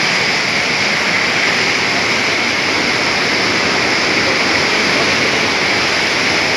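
Mountain stream rushing fast over boulders: a loud, steady rush of white water.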